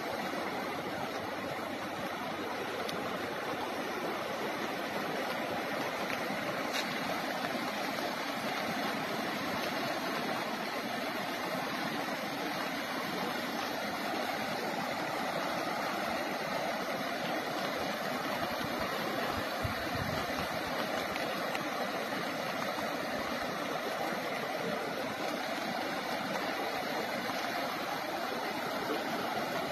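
Muddy floodwater rushing steadily over flooded ground, one continuous sound of moving water.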